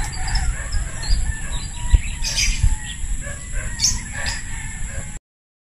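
Domestic chickens calling, a few short calls, over a low rumble; the sound cuts off suddenly near the end.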